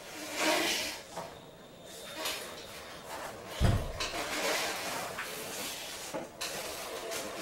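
Breaths rushing through a corrugated rubber tube into a rubber rebreathing bag, with the rubbing of heavy latex as the body moves. A single dull thump about halfway through is the loudest sound.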